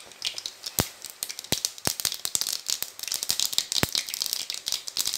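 Mustard seeds popping and spluttering in hot oil in a clay pot: irregular sharp pops over a sizzle, coming thicker and faster toward the end as the seeds start to burst.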